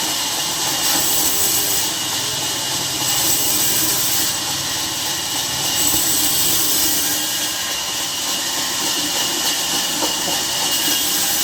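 Steady loud hissing noise, with a harsher high rasp that swells and fades every second or two.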